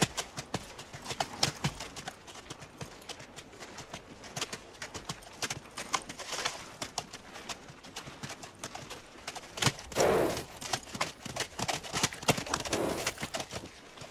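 Horses' hooves clip-clopping at a walk, steady and irregular, from soldiers' mounts. A louder horse sound comes about ten seconds in and again near the end.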